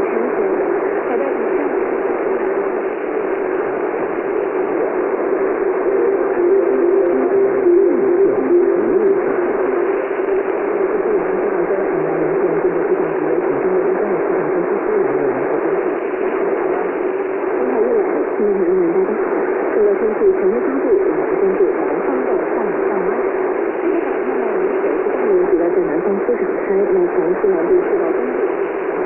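Shortwave radio reception of a weak signal: steady, dense static and hiss, with a wavering drone in the lower middle range. The audio is squeezed into a narrow band, and no speech gets through.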